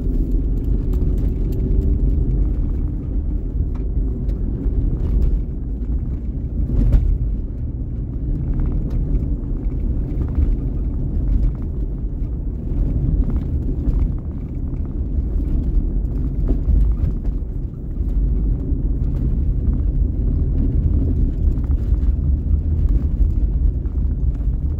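Steady low rumble of water rushing through a freshly unclogged culvert pipe and draining out of the ditch.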